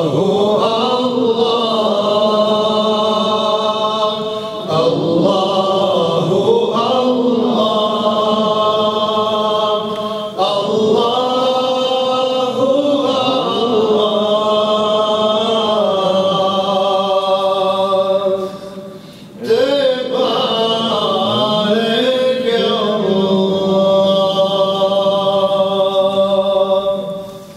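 A man singing a Bosnian ilahija, a devotional Islamic hymn, without accompaniment, in long held and ornamented phrases with short pauses between them.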